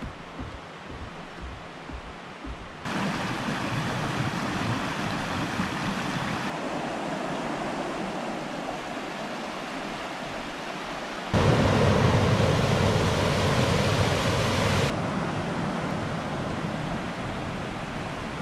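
Creek water rushing over rocks, a steady noise that jumps louder or softer at several abrupt cuts, loudest in the middle. In the first three seconds, before the water, light footsteps on wooden stairs.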